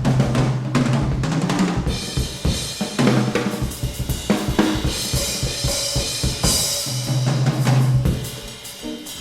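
Live small-group jazz with the drum kit to the fore: busy snare, bass drum and cymbal strokes over held low notes, getting quieter shortly before the end.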